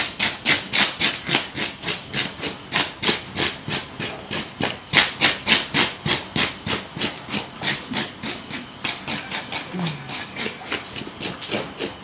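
Knife scraping the scales off a large fish, in quick repeated strokes about three a second.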